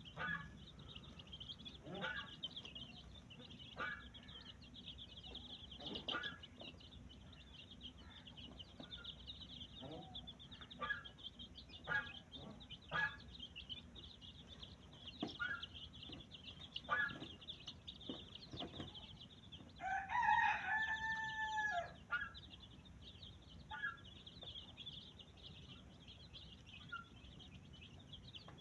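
A rooster crows once, a single call lasting about two seconds, about twenty seconds in. Short scattered clucks and chirps come every second or two over a steady, rapid, high-pitched chirring.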